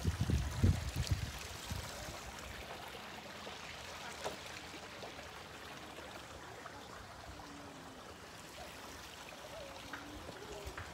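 Steady, even outdoor background hiss, with low rumbling on the microphone in the first second or so.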